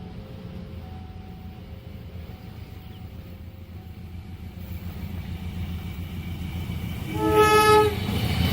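An approaching train rumbles and grows louder, while a level-crossing warning alarm sounds faintly in short alternating two-tone beeps. About seven seconds in, the train's horn gives one loud blast of just under a second, and then the train's noise rises as it nears.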